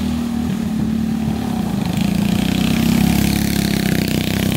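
Engines of two racing go-karts running at speed as they pass close by, growing louder about halfway through and dropping off right at the end as they move away.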